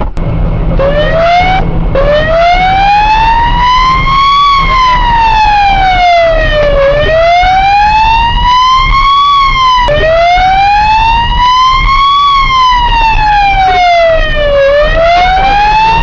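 Police car siren in a slow wail, its pitch rising and falling about every five seconds, heard from inside the speeding patrol car's cabin over engine and road noise.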